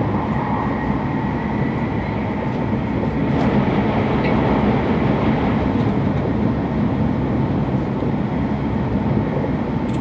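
W7 series Shinkansen running at speed, heard inside the passenger cabin: a steady rumble of wheels and rushing air, with a faint steady whine over it.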